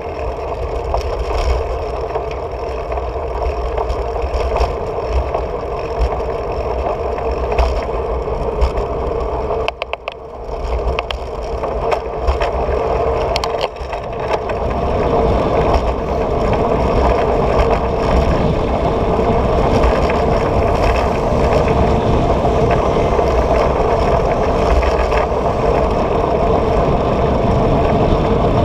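A bicycle rolling along a paved road, heard from a handlebar-mounted camera: a steady road and tyre rumble with rattling. It drops briefly about ten seconds in, then grows fuller and louder from about halfway on.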